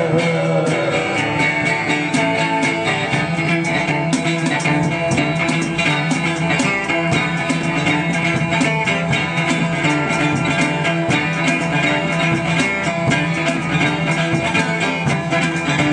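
Live instrumental passage: an acoustic guitar strummed in a steady rhythm, with hand percussion keeping time. A sung note trails off right at the start.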